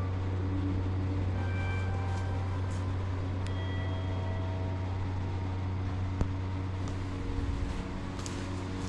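Steady low drone of a running vehicle, with a single sharp click about six seconds in.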